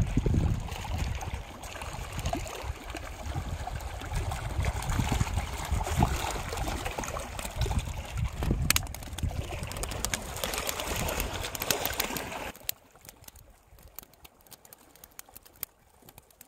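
Wind buffeting the microphone over water lapping against a rocky shore. About twelve seconds in it drops away suddenly, leaving a quiet stretch with scattered light taps.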